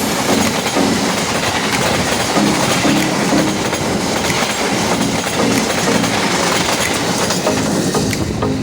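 A train passing at speed, its wheels clattering over the rails in a loud, steady rush.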